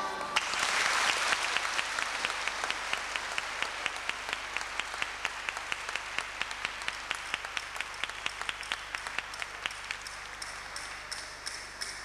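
Audience applause as the music ends, settling within about two seconds into steady rhythmic clapping in unison at about four claps a second. Near the end the beats thin out into sharper, more widely spaced taps.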